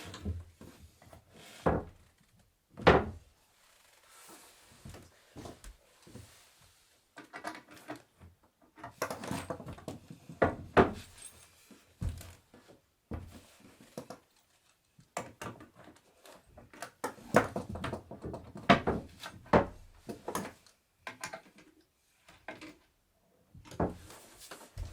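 Wooden bed-frame parts being handled and knocked together during assembly: irregular wooden knocks, clunks and clatter with short pauses, and busier stretches of handling in the middle and later on.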